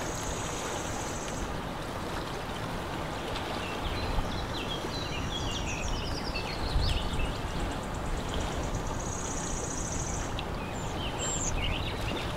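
Lakeside ambience: a steady rushing noise of water and wind with low rumbles, small birds chirping, and a high trill twice.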